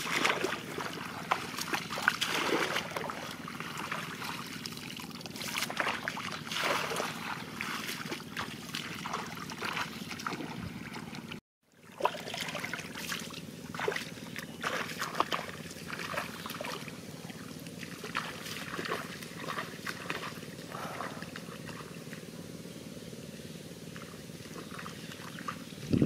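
Shallow muddy water splashing and sloshing as a man wades and gropes with his hands for fish, in irregular short splashes.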